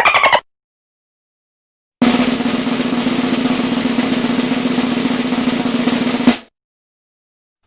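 Snare drum roll sound effect, starting about two seconds in and running for about four seconds, finishing on one accented stroke.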